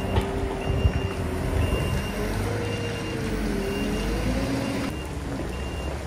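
Merlo telehandler's diesel engine running under load with its reversing alarm beeping about once a second, a steady high single-tone beep. The engine note rises and falls as the machine manoeuvres.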